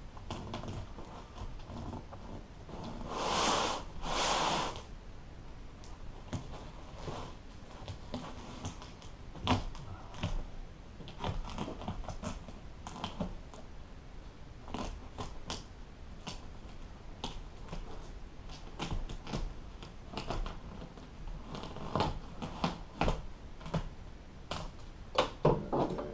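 Staples being pried out of a boat seat cushion's base with an upholstery staple remover: many short, irregular clicks and snaps as each staple lets go, with two louder half-second rasps about three seconds in.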